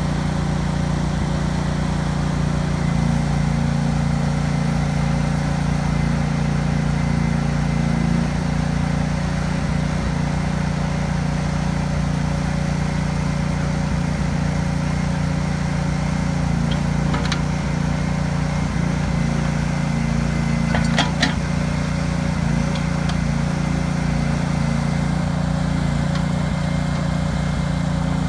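The Honda V-twin gas engine of a 2006 Allmand TLB 220 loader backhoe running steadily. A couple of brief knocks come past the middle.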